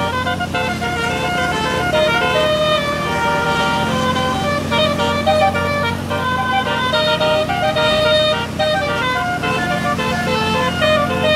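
Tour bus's multi-tone telolet (basuri) horn playing a fast tune of short and held notes, over the steady hum of the bus engine running.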